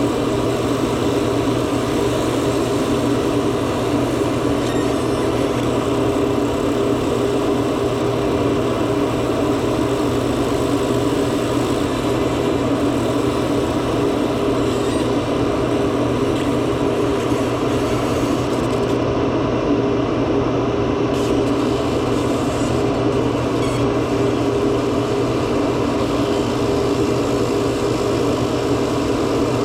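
Laser back-glass removal machine running with a steady hum and whir, holding level throughout as it etches the adhesive off the iPhone's back glass.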